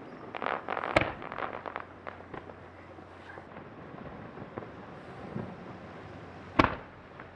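Aerial firework shells bursting: a sharp bang about a second in, set among a second or so of rapid crackling pops, then a second loud bang near the end.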